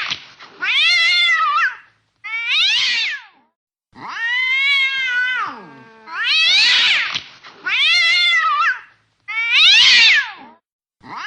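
Cats caterwauling in a fight. About six loud yowls, each about a second long, rise and then fall in pitch, with short gaps between them; another yowl begins at the very end.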